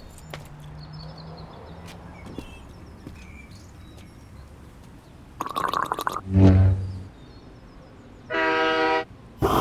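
A run of short separate sound effects: a brief clatter, then a loud, deep horn-like blast that fades away, and about two seconds later a higher, steady horn-like tone lasting under a second, with a sharp click near the end.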